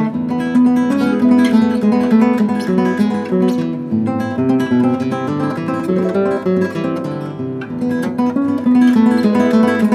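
Background music: acoustic guitar playing a continuous run of changing notes.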